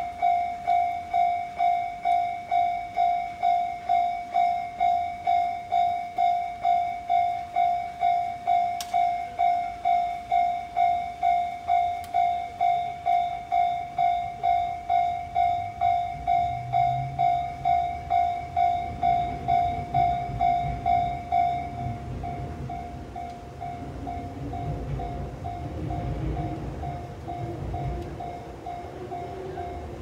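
Japanese level-crossing warning bell ringing in evenly repeated electronic strikes, about two a second; about 22 seconds in it drops in loudness and keeps ringing. Under it, from about halfway, a low rumble of an approaching train builds, with a rising whine near the end.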